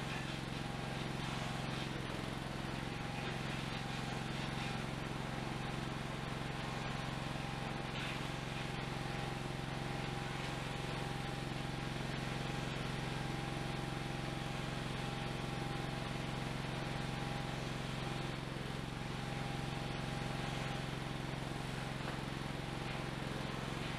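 A small engine running steadily at idle: an even low hum with a thin, steady whine above it.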